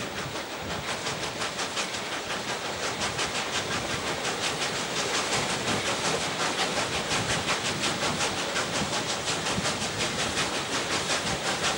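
Broad-gauge steam locomotive 520 "Sir Malcolm Barclay-Harvey" working hard, its exhaust beats coming in a quick, even rhythm over the running noise of the carriage wheels on the rails, heard from a carriage window.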